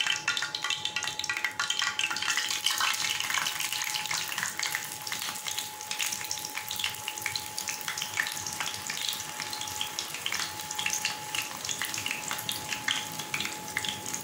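Hot oil sizzling and crackling around a batter-coated anchovy as it deep-fries in a pan, a dense, continuous patter of small pops.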